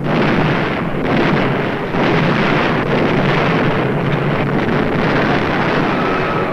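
Loud, continuous rushing roar of bomber aircraft engines on an old film soundtrack, dipping briefly about two seconds in.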